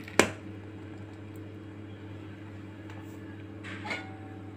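A single sharp metallic knock just after the start, with a short ring: a steel pan tapping the rim of a steel pot as the last of the rasam is poured. Under it runs a steady low hum, with a fainter clink near the end.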